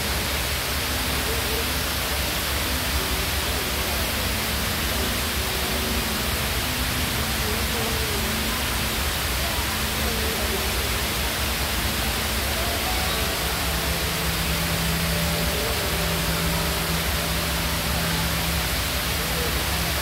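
Steady, even rush of falling water from a large indoor mall waterfall, with faint crowd voices underneath.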